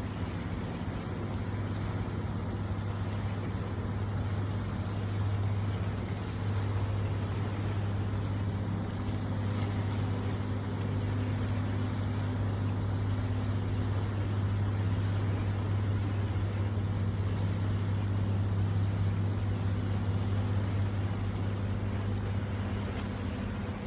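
Fishing boat's engine running steadily, a low even hum, over the wash of water and waves.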